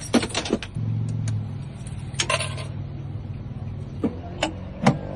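Sharp clicks and rattles of keys and tools being handled, over a steady low hum that starts about a second in.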